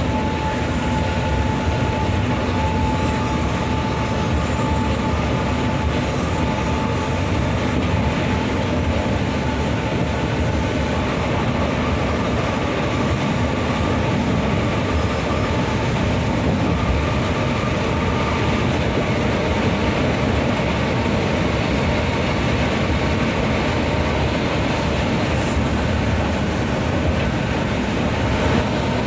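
Steady running noise inside a coach bus cruising at highway speed: engine drone and road noise, with a faint steady whine over it.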